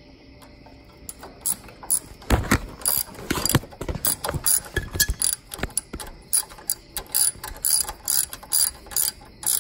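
Hand socket ratchet wrench clicking in repeated strokes, about two or three a second, as it works the exhaust mounting bolts on a riding lawn mower. It starts about a second in, with a few duller knocks around the third second.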